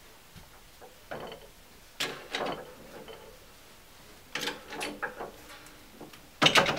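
Steel crankshaft parts being set and shifted by hand on a press bed: four short bursts of metal clanking and scraping, the loudest near the end.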